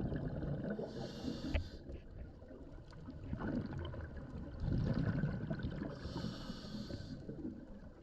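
Muffled water sloshing and churning, with two short hissing bursts, about a second in and again about six seconds in.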